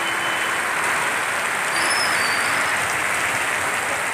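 Heavy monsoon rain pouring down steadily, an even hiss without let-up.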